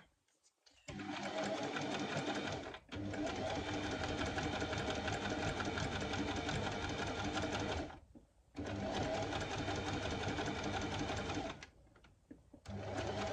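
Electric sewing machine stitching a zigzag seam through two layers of fabric, running in four stretches with brief stops between them as the fabric is guided.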